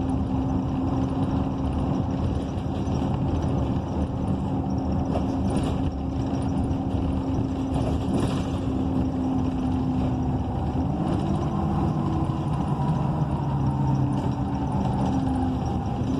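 2012 ENC EZ Rider II BRT transit bus with its Cummins Westport ISL G natural-gas engine and Allison B300R automatic transmission, heard from inside the cabin while under way. It is a steady drone with a held tone whose pitch changes about eleven seconds in.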